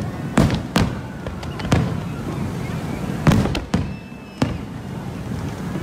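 Fireworks display: aerial shells bursting in a quick series of sharp booms, six or so in under five seconds, the loudest about three seconds in.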